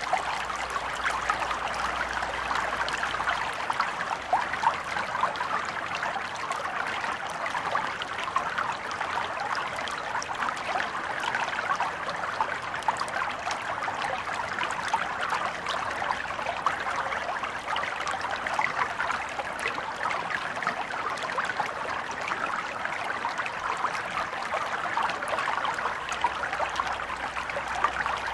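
Small stream of water flowing and trickling steadily over stones, a continuous burbling with fine splashing detail.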